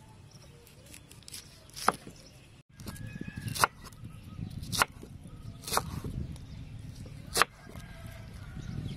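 A large kitchen knife chopping peeled pineapple on a wooden chopping board: five sharp knocks of the blade striking the board, about one to one and a half seconds apart, with softer cutting noise between them.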